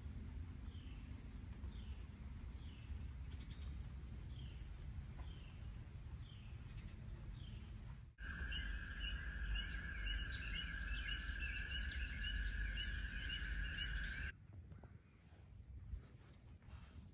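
Summer insect chorus: a steady high-pitched trill with a short chirp repeating about once a second. About eight seconds in it switches abruptly to a louder, lower steady drone with rapid chirping above it, and a few seconds before the end to a quieter high trill again.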